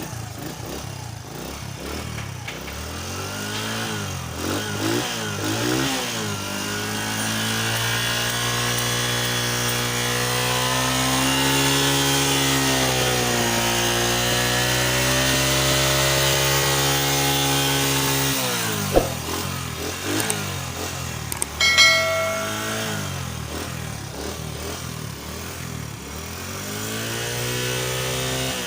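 Honda CD70's small single-cylinder four-stroke engine being revved. There are a few quick blips, then the engine is held at high revs for about ten seconds with the pitch wavering, then it drops back to idle. A sharp click and a brief beep follow, then more blips and a final rise in revs.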